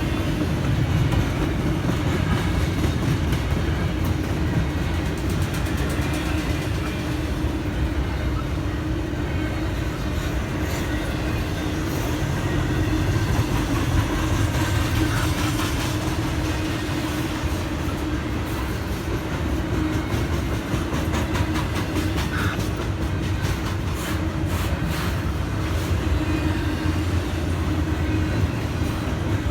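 Intermodal freight train rolling steadily past: a continuous rumble of railcar wheels on the rails with scattered faint clicks.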